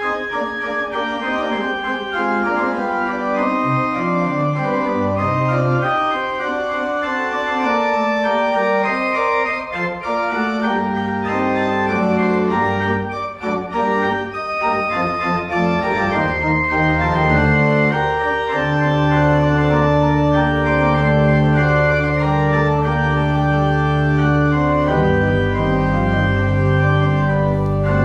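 Pipe organ playing slow, sustained chords. Deep bass notes come in about halfway through and hold to the end, making the sound fuller.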